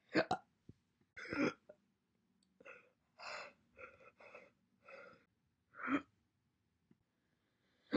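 A woman hiccuping again and again: about a dozen short, sharp catches of breath, with a run of breathier, cough-like ones packed close together in the middle.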